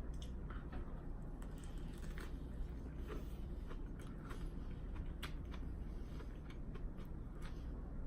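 Close-up chewing of a crunchy lettuce wrap filled with ground chicken and raw bean sprouts: irregular crisp clicks and crunches, over a steady low hum.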